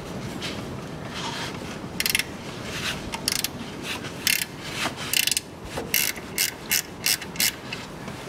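Hand ratchet with a 13 mm socket turning a bolt, its pawl clicking in short runs on the back strokes. The runs come quicker near the end, about three a second.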